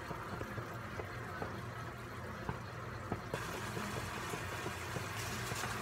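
Pork adobo simmering in a wok, a steady low bubbling with scattered small pops that turns more hissy about three seconds in, as the added vinegar cooks off and the sauce reduces.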